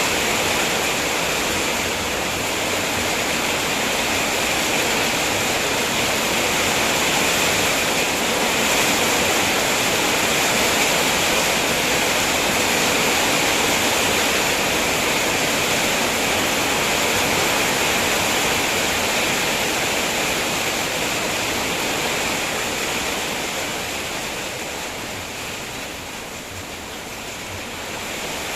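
Heavy rain pouring down steadily as a dense, even hiss, easing off somewhat over the last few seconds.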